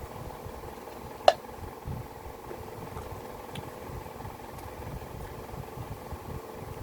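A person chewing pieces of baked clay pot, with soft irregular chewing thuds and one sharp crack about a second in, over a steady electrical hum.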